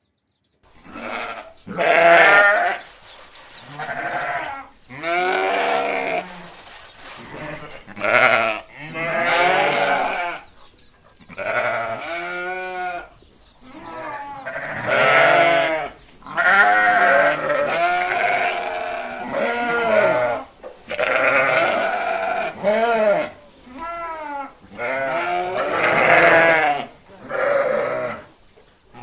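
Goats bleating again and again, about fifteen calls one after another, some with a wavering, quavering pitch.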